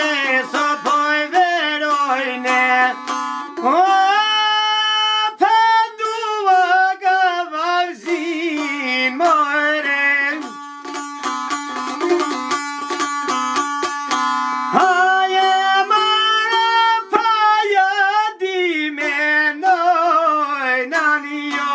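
A song: a voice singing long, wavering, ornamented notes over a plucked string instrument.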